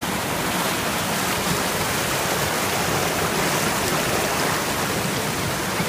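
Waterfall: white water cascading down a rock face, a steady rush that holds even throughout.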